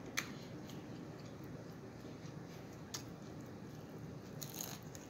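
A person chewing a mouthful of food with the mouth closed, with a few soft wet mouth clicks: one about three seconds in and a short cluster near the end.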